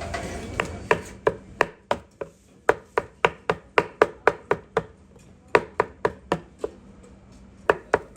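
Knife chopping on a cutting board, sharp strikes at about three a second, in three runs broken by two short pauses.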